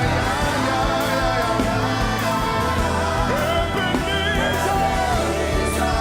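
Live gospel worship music: a band playing steadily with a strong bass, a singer's voice gliding through a few drawn-out notes over it.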